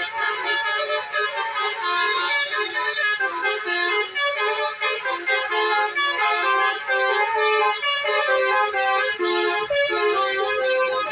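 Basuri-style telolet multi-tone bus air horns playing a melody, a quick run of changing notes.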